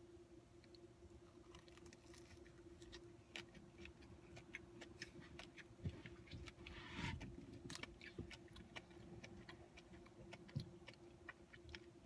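Quiet chewing of a cinnamon sugar donut: faint, irregular mouth clicks and soft smacks over a low steady hum.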